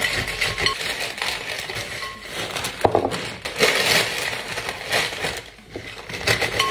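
Tortilla chips pouring from crinkly plastic bags into a glass mixing bowl, rattling and clinking against the glass, with the bag crackling as a second one is torn open and tipped in.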